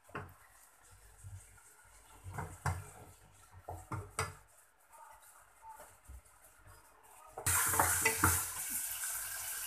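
Wooden spoon stirring diced onion and chicken in a metal saucepan, with scattered light knocks and scrapes against the pan. About seven and a half seconds in, a louder steady sizzle of the food frying in oil and butter sets in.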